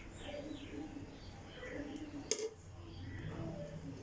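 Faint handling sounds of cooked pulao rice being served out of the pot, with one sharp clink of a utensil against a dish a little over two seconds in.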